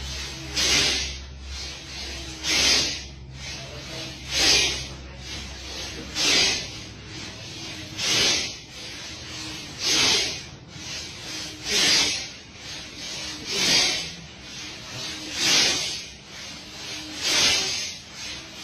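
A crowd of men chanting zikr in unison as a forceful, rasping breathed chant, one loud burst about every two seconds with a softer breath between, keeping an even rhythm.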